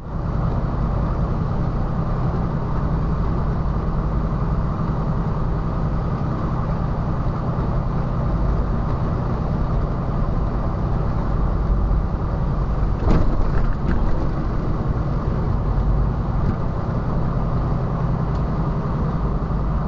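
Mercedes-Benz Unimog's diesel engine running steadily as the truck rolls slowly along a dirt road, with low rumble from the drivetrain and tyres. A couple of short knocks come about two-thirds of the way through.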